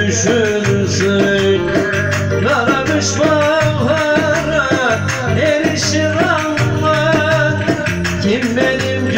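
Instrumental break of a Turkish folk song: an electric bağlama plays a bending melody over a steady rhythmic backing with shaken percussion.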